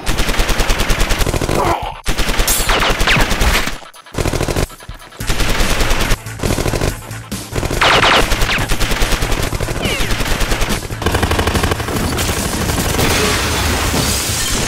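Rapid bursts of automatic gunfire, as from submachine guns, broken by a few brief pauses.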